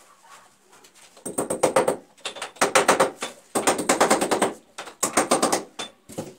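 A ratcheting hand tool being worked on plastic water pipes, clicking rapidly in four short bursts.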